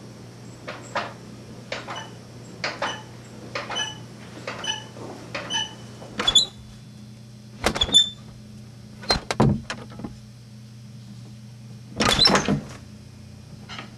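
A closet door being worked: a run of paired metallic latch clicks about once a second, then fewer, louder knocks and clatters, the loudest near the end.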